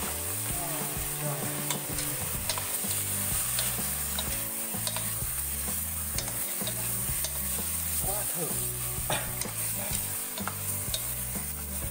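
Pieces of straw-singed duck sizzling in hot oil as they are stir-fried in a stainless steel pot. The stirring utensil clicks and scrapes against the pot now and then.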